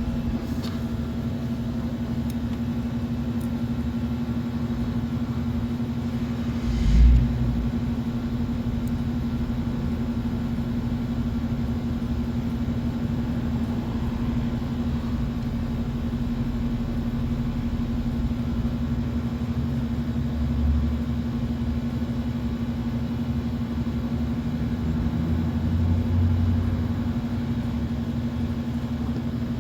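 Steady machine hum with a low rumble, broken by a single thump about seven seconds in and two brief swells of deeper rumble later on.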